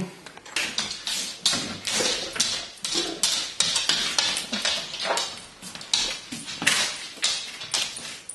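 Metal hand tools, a steel pry bar among them, knocking and clinking irregularly against wood and each other, about two or three sharp knocks a second.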